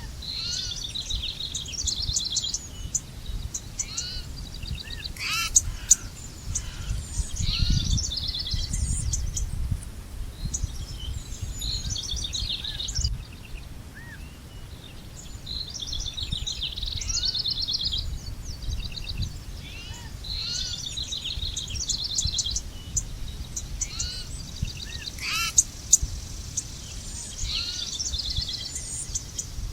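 Several songbirds singing and calling, in rapid trilled phrases and short chirps that overlap, with a lull in the middle. Underneath runs a low rumble that swells briefly near the start.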